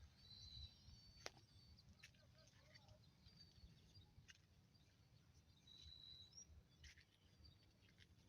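Faint birds chirping, with short high whistled notes scattered throughout, over a low rumble and a sharp click about a second in.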